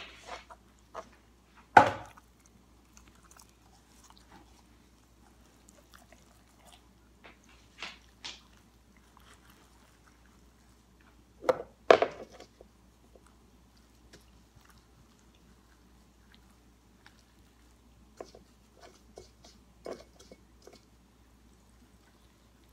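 Gloved hands handling and rubbing seasoning into a raw deboned chicken: soft, wet squishing and rustling, with a few sharp knocks, the loudest about two seconds in and again about twelve seconds in.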